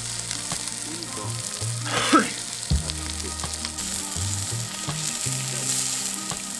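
Food frying and sizzling on a hot cooking surface, a steady hiss, over background music with a low bass line. A short sliding sound stands out about two seconds in.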